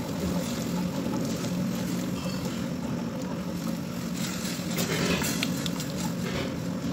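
Sugar syrup boiling in a steel pot while a silicone spatula stirs and scrapes it, with a few light scrapes a few seconds in, over a steady low drone.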